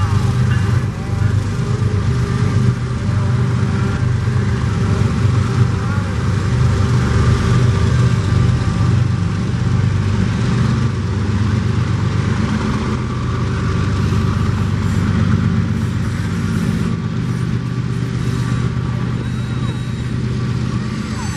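A string of Norfolk Southern diesel-electric freight locomotives passing close by, their engines running with a steady low drone over the rumble of steel wheels on the rails.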